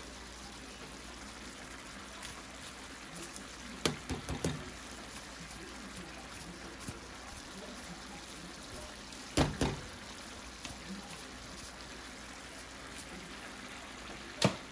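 Chicken backs cooking in a pot on low heat, a steady faint sizzle, broken by a few sharp knocks: about four seconds in, twice around nine and a half seconds, and once near the end.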